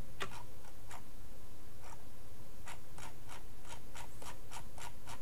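Computer mouse scroll wheel clicking in quick runs of light ticks with short pauses, over a steady low hum.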